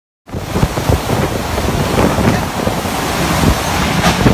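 Violent tornado wind with driving rain, heavy wind buffeting on the phone's microphone, starting suddenly a moment in. A sharp knock comes near the end.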